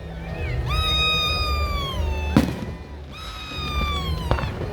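Fireworks going off: two long whistles that hold and then slowly fall in pitch, with a sharp bang between them and another near the end, over a low rumble.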